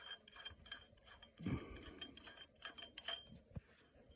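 Faint, scattered light metallic clicks and clinks of small steel parts such as lug studs, washers and nuts being handled, with a soft thump about a second and a half in.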